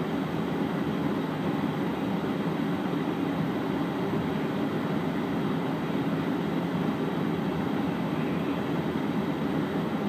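Steady low rumble of a moving vehicle heard from inside its cabin: engine and tyre noise, even and unbroken.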